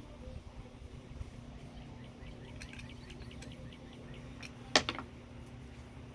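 One sharp clack, the loudest sound, about three-quarters of the way through, just after a couple of softer taps. Faint short chirps sound in the middle over a steady low hum.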